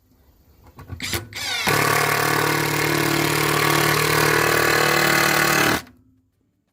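Prostormer electric power tool briefly triggered about a second in, then running steadily at one pitch for about four seconds before it is switched off and stops suddenly.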